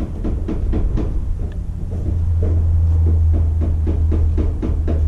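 An engine running loud and deep, a steady drone with fast, regular knocking strokes, swelling up at the start.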